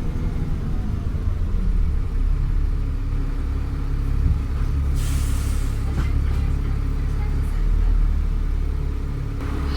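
Diesel engine of a Trident E400 double-decker bus running with a steady low rumble, heard from on board. About five seconds in comes a short hiss of compressed air from the bus's air system, such as the air brakes.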